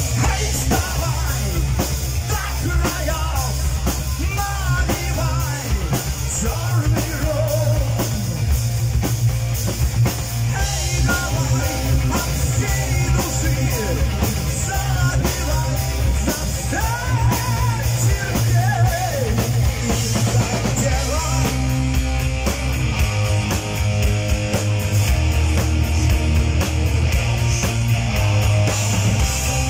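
Live heavy metal band playing: electric guitars, bass and drum kit, with a male lead singer's vocal over much of it.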